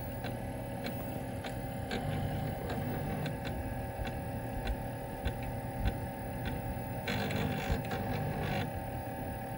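Osborne 1's 5¼-inch floppy drive loading a program: the drive running with a string of short head-stepping clicks and a denser run of rasping seeks about seven seconds in. A steady hum and whine from the computer sit underneath.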